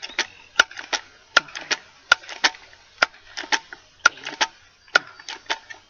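A 10-pump .22 pellet rifle being pump-charged: a run of sharp mechanical clacks from the pump lever, in clusters about once a second.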